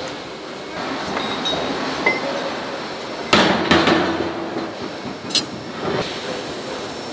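Steel forging stock and tools clanking against steel dies and the press bed: a handful of sharp metallic knocks over steady workshop noise. The loudest come about three seconds in, and some ring briefly.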